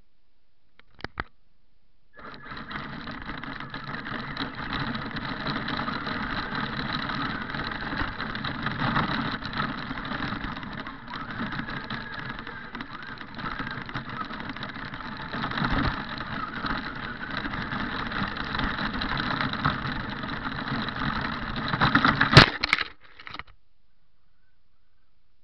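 Radio-controlled car driving, its motor and drivetrain running over gravel and snow, heard from a camera mounted on the car. Two faint clicks come about a second in and the running starts about two seconds in. Near the end a sharp knock is the loudest moment, and the sound cuts off suddenly just after it.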